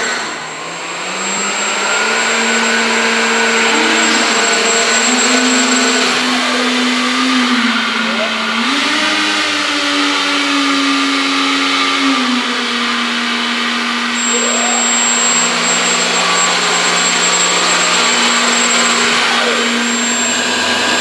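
The electric motor-driven fans of a foam RC hovercraft whir continuously. The level dips briefly at the start, then comes back up, and the pitch shifts up and down several times as the throttle changes.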